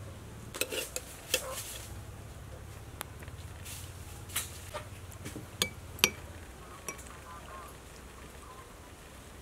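A metal spoon clinking and scraping against ceramic soup and sauce bowls, several sharp clinks spread through, over a steady low hum.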